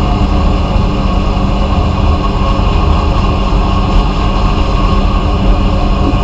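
Abrasive blasting equipment running: a continuous, steady blast noise over a low machine drone, with no pauses.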